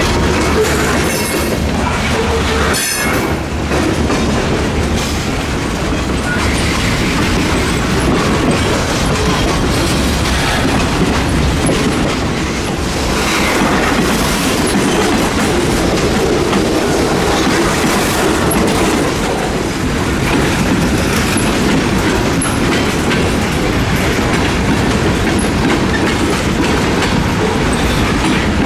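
Freight cars rolling slowly past close by, their steel wheels rumbling and clattering on the rails.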